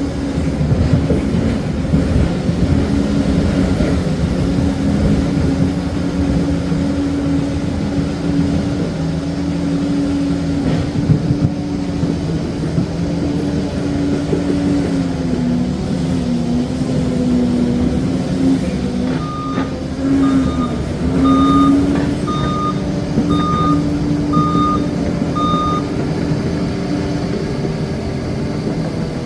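Liebherr PR 746 crawler dozer's diesel engine running steadily under load, its pitch sagging and recovering a few times. About two-thirds of the way through, its reversing alarm beeps about once a second, seven times, as the dozer backs up.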